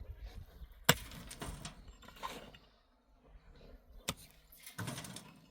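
Sharp knock about a second in and another about four seconds in, with scraping and rustling between them.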